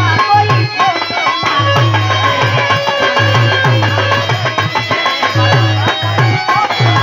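Live Indian folk music: a dholak barrel drum played by hand in a quick, repeating rhythm of deep strokes, with held melody notes over it.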